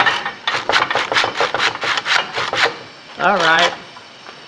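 Hand saw cutting through PVC raceway held in a 45-degree miter clamp: rapid back-and-forth rasping strokes, about six a second, that stop a little under three seconds in as the cut goes through.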